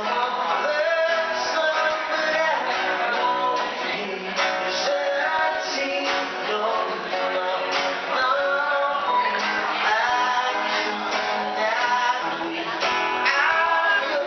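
A man singing to his own strummed acoustic guitar, a solo live performance.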